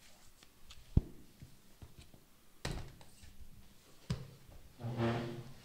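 Thumps and knocks on a wooden desk as a book is closed and set aside, the loudest a sharp thump about a second in, then two lighter knocks and a short low pitched sound near the end.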